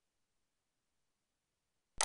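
Near silence, faint room tone, until a sudden sharp sound starts at the very end.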